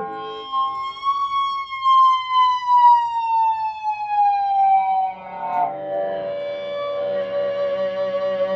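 Fretless electric guitar with a Fernandes Sustainer pickup holding one note indefinitely while it slides slowly down in pitch. About five seconds in, a lower note is sustained steadily.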